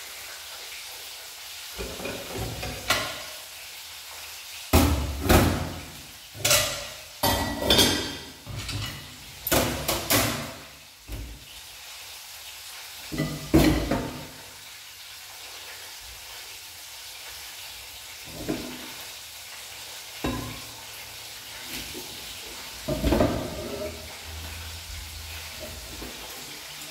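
Chicken frying in hot oil in a pan on a gas stove, a steady sizzle throughout. Over it, a run of sharp knocks and clatters in the first half, then a few more, further apart, later on.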